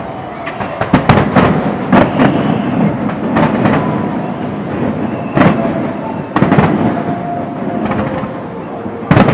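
Fireworks display going off: a string of sharp bangs and crackles, several close together in the first few seconds, then more spread out, with another loud bang near the end.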